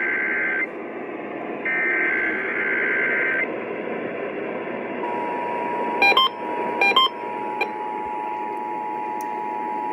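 Emergency Alert System transmission received over the radio with a steady hiss: two bursts of the SAME header data tones, then, about five seconds in, the steady two-tone EAS attention signal begins and holds. Three short, loud beeps cut in over the tone just after it starts.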